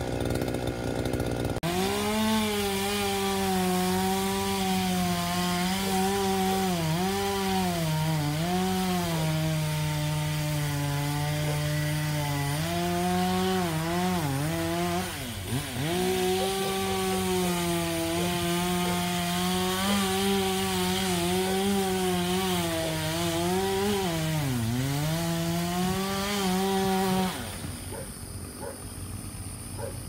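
Chainsaw running at high revs, its pitch dipping and recovering several times as it bogs down in cuts through limbs; it stops near the end.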